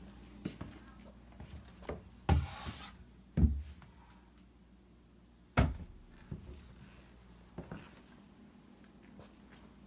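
Scattered knocks and thumps from footsteps and from a handheld phone being carried and bumped, with quiet room tone between. The loudest come about two and a half, three and a half and five and a half seconds in, the first with a short rustle.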